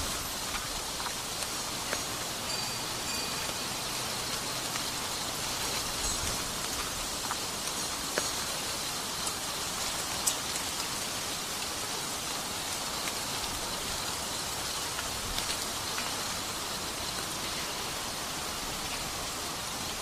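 Steady rain falling, a continuous hiss with scattered sharper drop ticks.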